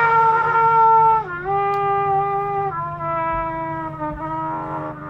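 Cornet played solo: a slow line of held notes, each lower than the last, the first one held a little over a second.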